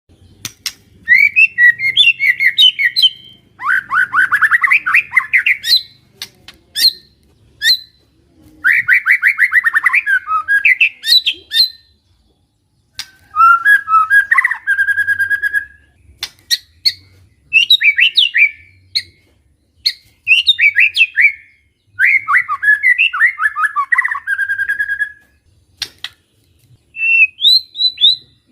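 White-rumped shama singing in bursts: varied phrases of rapid whistled notes and trills, each a second or two long, separated by short pauses, with sharp clicks between phrases. Continuous singing of this kind is what keepers call a 'gacor' bird.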